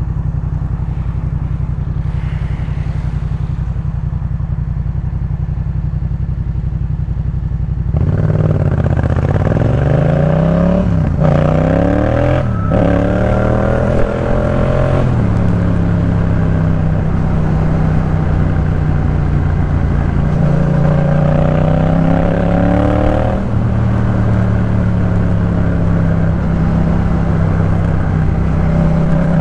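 A Yamaha MT-07's parallel-twin engine running through a Jeskap K4 full exhaust system. It holds steady low revs at first. About eight seconds in it gets louder and pulls up through the revs with two quick upshifts, then settles into a steady cruise.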